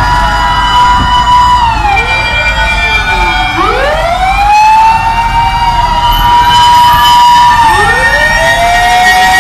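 Several fire truck sirens wailing at once as the trucks drive past, each rising, holding and falling in pitch out of step with the others, over a low engine rumble.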